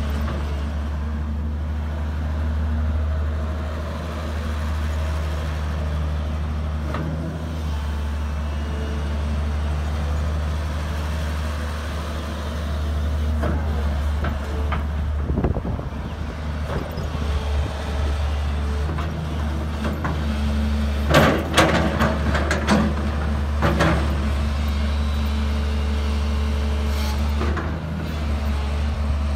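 Daewoo Solar 220LC excavator's diesel engine running steadily while the machine swings and works its boom and bucket, the engine note shifting as the hydraulics are loaded. A few sharp knocks about two-thirds of the way through.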